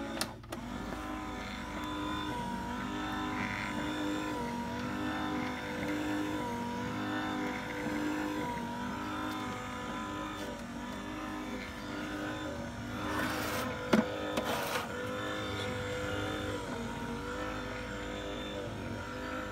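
Legxercise electric passive leg exerciser running at its higher speed: a steady motor hum whose pitch wavers about once a second as the foot pedals rock back and forth. A sharp knock with a little rustling about two-thirds of the way through.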